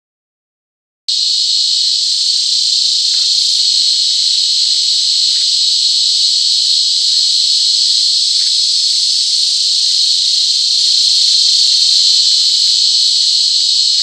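Cicada singing: a loud, steady, high-pitched buzzing drone that starts abruptly about a second in and swells slightly near the end.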